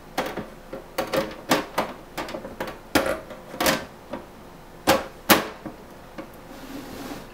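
Steel side panel of a desktop computer case knocking and scraping against the chassis as it is set on and slid into place. It makes a string of sharp, irregular clicks and clanks.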